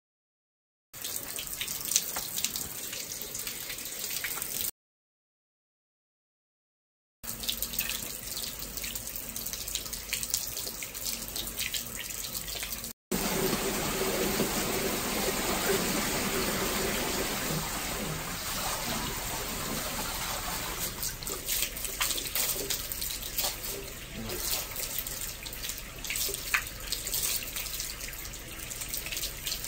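Water running and splashing around a small bathtub, a steady water noise with scattered light clicks. It cuts to dead silence twice in the first seven seconds.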